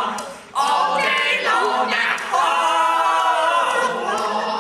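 Voices singing a cappella without accompaniment, in held sung notes, with a brief break about half a second in.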